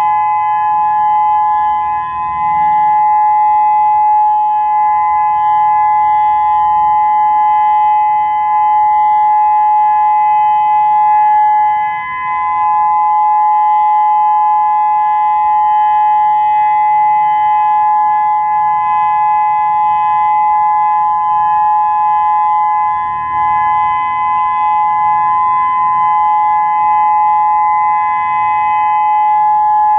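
Federal Signal Modulator 6024 outdoor warning siren sounding its steady alert as a two-note dual-tone chord. The level dips briefly about every ten seconds.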